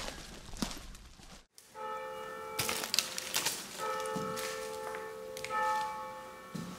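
Footsteps crunching on dry leaves, cut off abruptly about a second and a half in. Then a bell is struck three times about two seconds apart, each stroke ringing on, with a few light taps between the first strokes.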